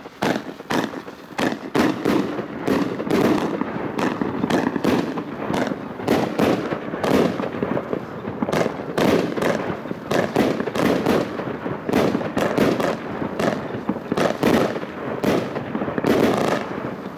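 Tosch Pyro 59 firework battery, a 25-shot cake, firing: a steady run of launch thumps and heavy shell bursts, several bangs a second, as its gold brocade crowns break.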